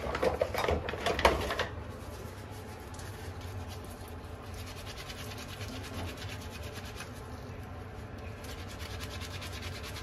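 Gloved hands scrubbing a soapy filter from a Mondial upright vacuum cleaner, rubbing it like a cloth: a steady wet rubbing and scratching. It is louder and busier for about the first second and a half, then settles into an even rubbing.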